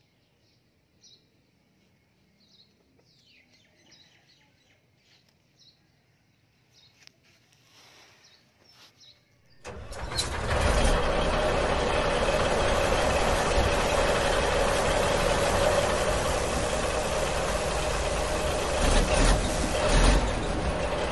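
Faint chirps and a few light knocks at first. About ten seconds in, a loud, steady truck engine sound starts suddenly, with a held hum under it, and keeps running.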